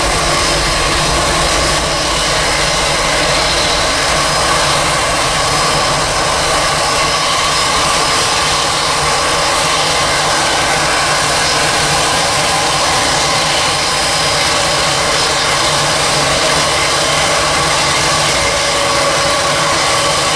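Boeing 777 twin GE90 turbofans at takeoff thrust during the takeoff roll: a steady, loud jet engine rush with a high whine over it.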